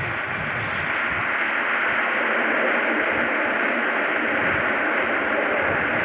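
Steady rushing hiss, even and unbroken, with faint low thuds now and then.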